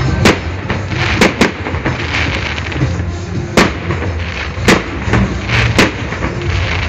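Fireworks display: about six sharp shell bursts at irregular intervals over a continuous crackle and rumble, with music playing underneath.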